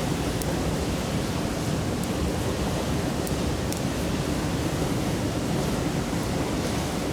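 Mountain stream babbling steadily, with a few faint, sharp crackles from a wood campfire.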